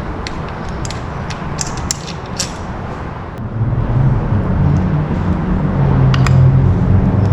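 Light clicks and taps over a steady rumble, then a low motor drone that builds from about halfway through and grows louder.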